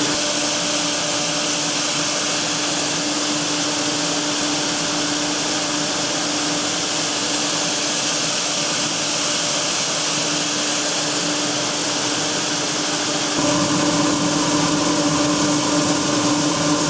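Agricultural machine running steadily, a loud even mechanical drone with a constant whine over a broad hiss; about 13 seconds in the sound changes abruptly and gets a little louder and fuller.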